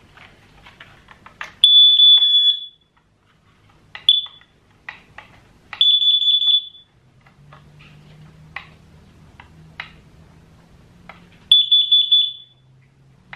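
Carbon monoxide alarm sounding loud, high-pitched beeps: three of about a second each and one short one. Clicks of the alarm and its packaging being handled come between the beeps.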